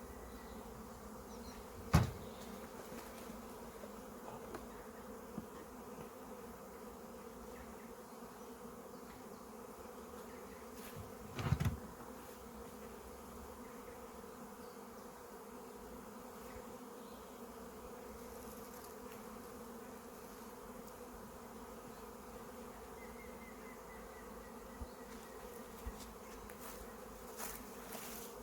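Honeybees buzzing in a steady hum, with two sharp knocks, about two seconds in and again about ten seconds later.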